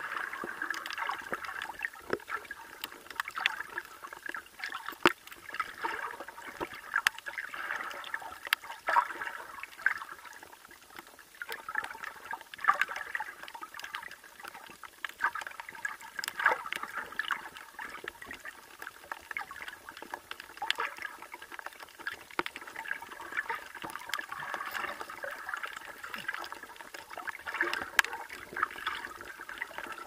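Shallow sea water heard from just below the surface through an underwater camera housing: a steady, muffled sloshing and gurgling, with many scattered sharp clicks and ticks.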